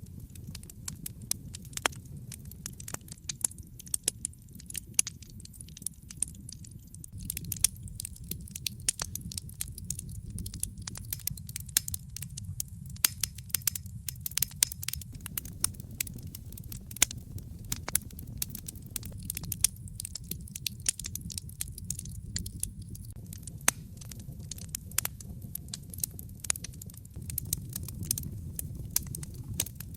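Wood fire burning in a fireplace: a steady low rumble with frequent sharp, irregular crackles and pops.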